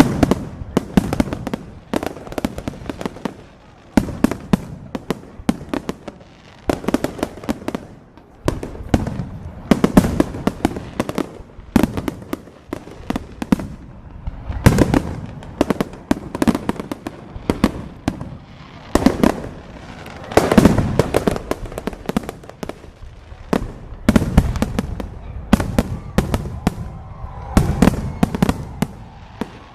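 Fireworks exploding in rapid, irregular succession: many sharp bangs and crackles a second, with louder clusters of booms every few seconds.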